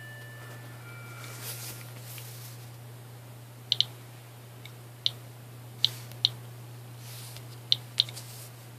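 Eberline E140 Geiger counter clicking at irregular, random intervals over a steady low hum, with the detector beside a piece of uranium glass.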